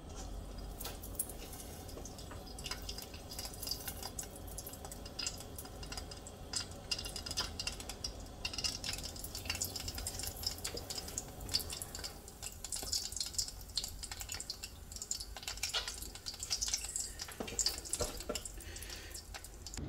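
Breaded plantain rolls lowered into hot oil in a saucepan and frying: a steady sizzle of many small crackles and pops that grows busier about halfway through.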